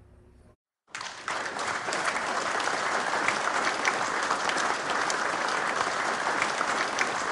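Crowd applause, many hands clapping steadily, starting suddenly about a second in after a brief silence.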